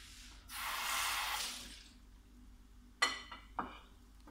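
Hot oil sizzling under egg-dipped bread slices in a frying pan, swelling up about half a second in and fading again. About three seconds in come two sharp clinks with a brief ring.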